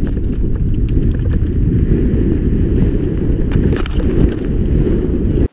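Heavy low rumble of wind buffeting the camera's microphone on a fast mountain-bike descent over gravel. Scattered clicks and rattles come from the tyres on loose stones and the bike's parts. The sound cuts off suddenly at the end.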